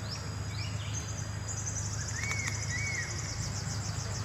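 Outdoor ambience with insects trilling in a fast, even, high-pitched pulse that starts about a second and a half in. There are a few short falling chirps near the start and two short arched chirps about two seconds in, over a steady low hum.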